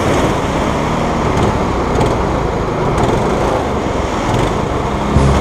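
Go-kart engines idling, a steady mechanical din, swelling briefly louder near the end.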